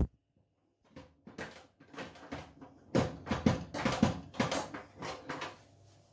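Irregular metallic clicks and knocks as an oven door's hinges are worked loose and the door is lifted out of its hinge slots, starting about a second in and thickening into a cluster of sharp clunks before dying away near the end.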